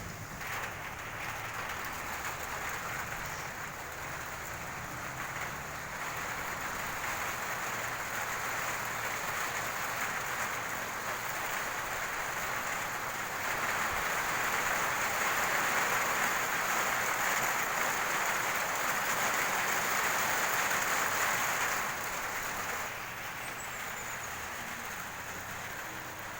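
Rain falling steadily, growing heavier about halfway through and easing off again a few seconds before the end.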